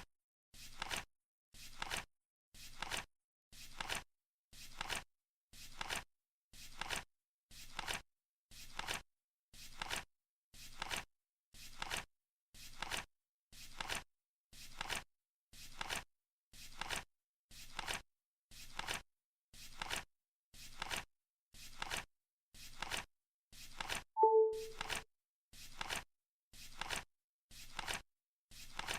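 Flip clock's cards flipping over once a second, a short clack each time. A single short beep sounds about 24 seconds in while the flipping keeps going.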